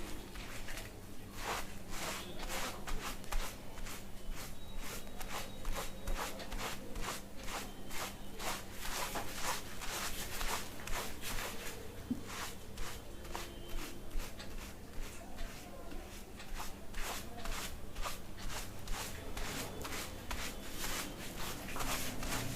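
A barber's fingertips scratching and rubbing through shampooed hair on the scalp during a head massage: a quick, irregular run of soft scratchy strokes over a steady low hum.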